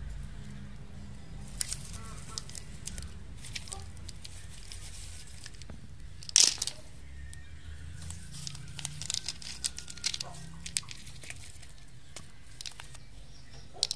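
Dry leaf litter rustling and crackling as a hand rakes and turns it over, in scattered irregular crackles and clicks. The loudest is a sharp crunch about six and a half seconds in, with a busier run of crackling a couple of seconds later.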